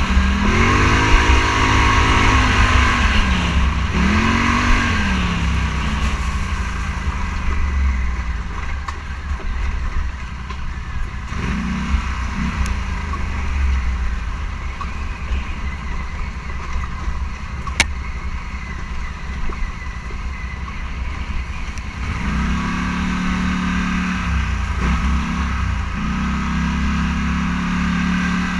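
Engine of a Scrambler 1000 off-road vehicle heard from on board, revving up and down through the first few seconds, easing off through the middle, then picking up again and holding higher revs near the end. A steady low rumble of wind and terrain runs underneath.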